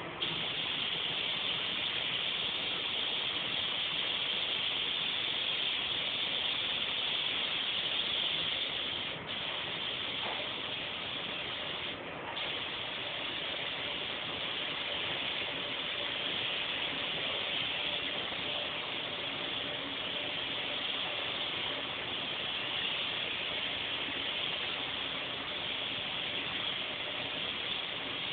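Compressed-air paint spray gun hissing steadily while laying a light coat of waterborne base coat, broken off briefly twice, about 9 and 12 seconds in.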